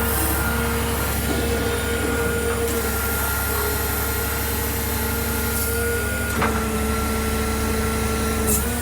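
A 2012 Peterbilt 330 diesel truck running, a steady low rumble with a whine whose pitch shifts slightly a few times.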